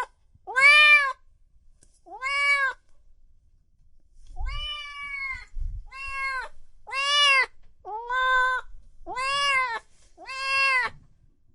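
A cat meowing repeatedly, about eight meows, each rising and then falling in pitch, with one longer, drawn-out meow about four seconds in.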